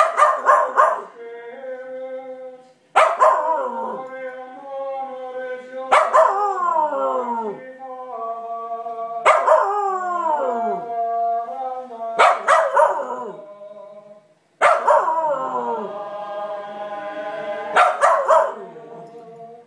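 Small shaggy dog howling along to a priest's sung chant: about every three seconds it gives a burst of sharp barks that slide down into falling howls, about seven times, while the priest holds long sung notes between the bursts.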